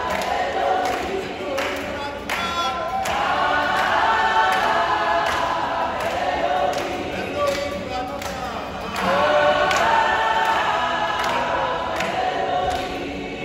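A crowd of voices singing together in chorus to an acoustic guitar, with hand claps keeping a steady beat.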